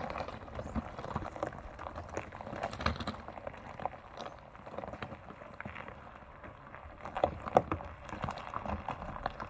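Irregular crunching and clicking of loose stones and gravel on a rocky dirt road, with a few louder clicks about seven to eight seconds in.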